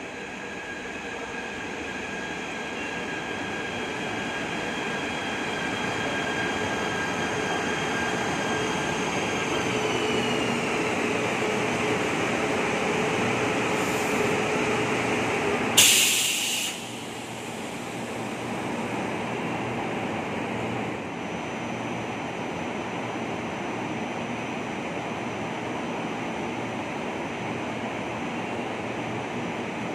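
KTM Komuter electric train pulling into the platform: its motors whine in several steady tones that slide down in pitch as it slows to a stop. About sixteen seconds in comes a short, loud hiss of air released from the brakes, then a lower steady hum as the train stands.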